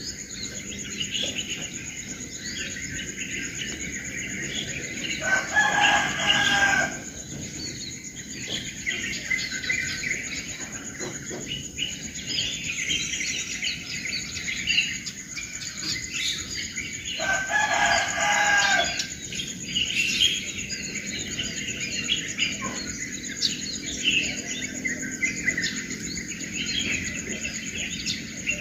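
Morning chorus of small birds chirping and twittering, with a rooster crowing twice, each crow lasting about a second and a half. A steady high-pitched whine runs underneath.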